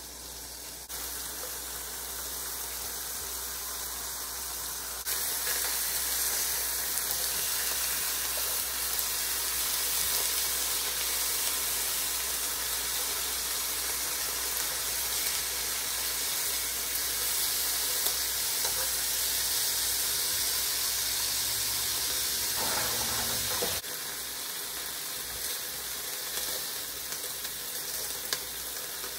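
Steak slices sizzling as they sear in butter in a frying pan, turned over with tongs. The sizzle steps up louder about five seconds in and drops back a few seconds before the end.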